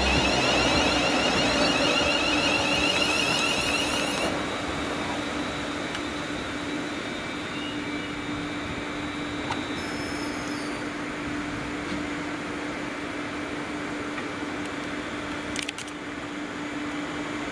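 An electric multiple-unit train passes with a high, warbling whine over a rumble, which fades away about four seconds in. A steady low hum is left behind, with a single click near the end.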